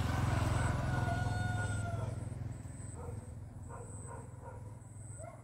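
A loud low rumble that fades away after about two seconds, with one long drawn-out animal call over it, then a few short animal calls.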